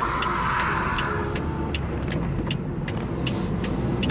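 Toyota MR2's 4A-GE four-cylinder engine running steadily at low revs, heard from inside the cabin, with a run of light, irregular clicks over it.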